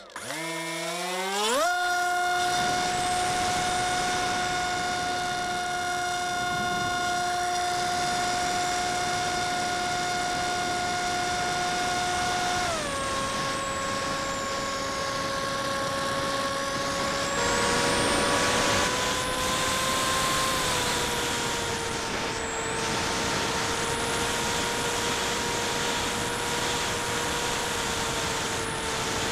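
FPV multirotor drone's brushless motors and propellers, heard from on board. They spool up with a steep rising pitch in the first second or two, hold a steady high tone, then drop in pitch at about 13 s and again around 18–20 s as the throttle eases. Air rushes past the whole time.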